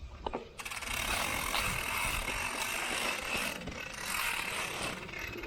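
Industry Nine Hydra rear hub freewheeling, its many pawls making a fast, high-pitched ratcheting buzz that starts about half a second in and eases near the end.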